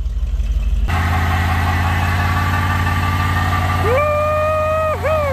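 Truck engine run up hard for a burnout: it steps up to high revs about a second in and holds there steadily. A clear wailing tone joins about four seconds in, breaks off for an instant, then slides downward.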